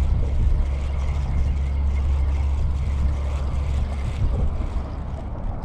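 Wind buffeting the microphone: a steady low rumble with a gusty hiss over it.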